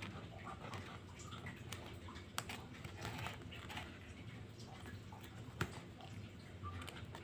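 Faint room noise with a low hum, light scratching and two sharp clicks, about two and a half and five and a half seconds in, as a toothpick picks at a sand-art colouring card.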